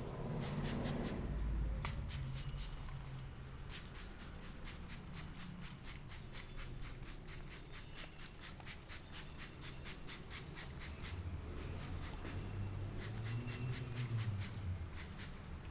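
Head massage: the masseur's hands make a rapid, even run of sharp taps or snaps on the head and hair, about five a second, with two short pauses, over a soft rubbing of hands on skin and hair.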